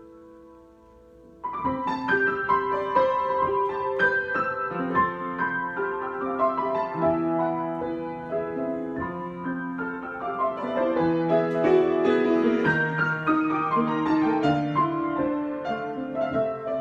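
Solo piano improvisation: a few soft held notes fade away, then about a second and a half in it comes in suddenly louder with full chords and busy moving notes that carry on.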